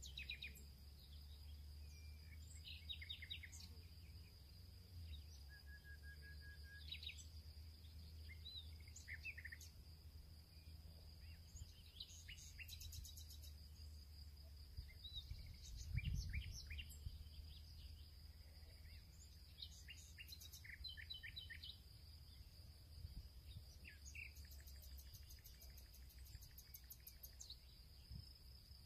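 Faint background ambience: birds chirping now and then over a steady high insect-like drone and a low hum. About halfway through there is a single soft low thump.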